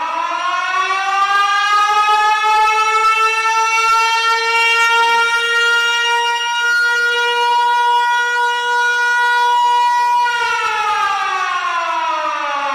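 Siren sounded to declare the event officially open: it winds up to a steady wail over the first couple of seconds, holds, then winds down with falling pitch from about ten seconds in.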